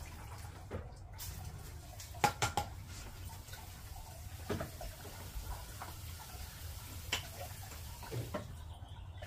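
Scattered light clicks and knocks of plastic from a freshly primed hand pump on a toy water table, with a little water, over a faint low hum.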